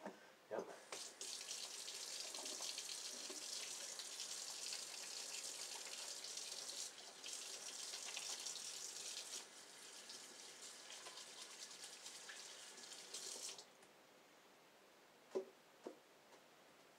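Kitchen sink faucet running as hands are washed under it. The water comes on about a second in, gets a little quieter past the middle, and is shut off about three-quarters of the way through, followed by two light knocks.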